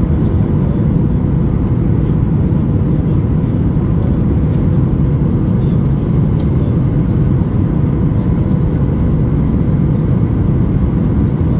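Boeing 737 MAX 8 cabin noise heard at a window seat over the wing in flight: a steady low rumble of the CFM LEAP-1B engines and rushing air, with a faint steady hum.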